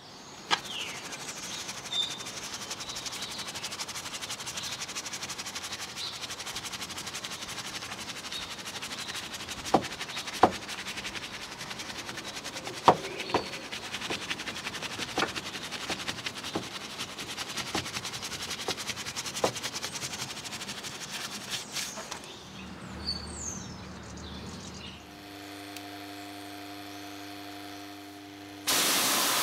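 A soft detailing brush scrubbing grime and moss out of a car's window rubber seals: a light scratchy hiss with scattered small clicks and taps. Near the end a steady hum of several tones comes in, then a pressure washer's spray starts hissing loudly in the last second.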